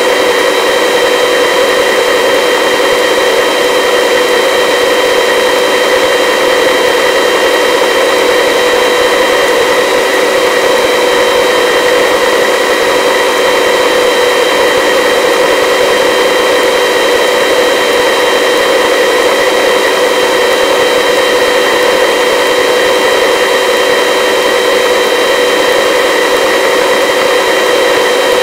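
Turbine helicopter in a low hover: a steady engine and rotor drone with a constant whine, unchanging throughout.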